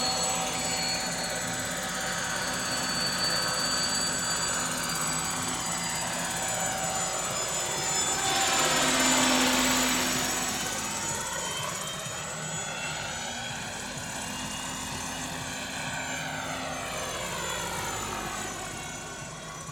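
Large radio-controlled scale model of a Lama helicopter lifting off and flying past: a steady high whine over the rotor noise. It swells to its loudest about halfway, with a sweeping, phasing sound as it passes close, then fades as it climbs away.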